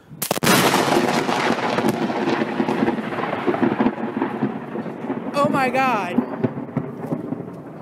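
Close lightning strike: a sudden, very loud crack of thunder just after the start, followed by a long rumble that slowly dies away over the next several seconds. A person's voice cries out briefly about five seconds in.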